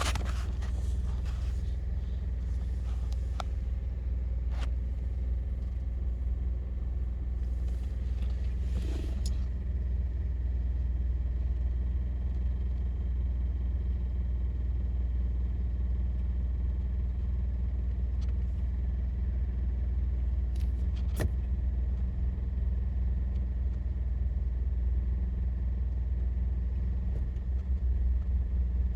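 2017 Honda Accord Sport idling in Drive while held stopped: a steady low rumble with a rattle that comes with idling in gear. A few separate sharp clicks sound through it.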